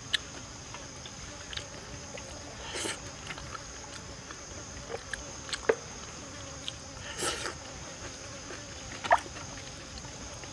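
Steady high drone of forest insects, with scattered sharp clicks and taps of wooden chopsticks on a coconut-shell bowl and plate while eating, and two brief rustles about 3 and 7 seconds in.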